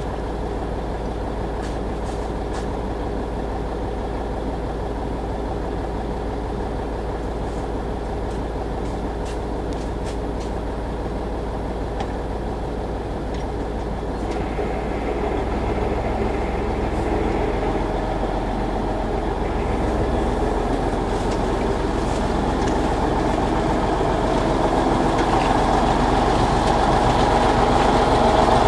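T-150K tractor's YaMZ-236 V6 diesel engine running steadily, growing louder through the second half as the tractor drives up close.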